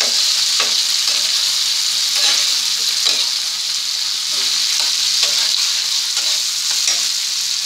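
Chopped vegetables frying in a pan with a steady sizzle, a metal spatula scraping across the pan as they are stirred, a short scrape every second or so.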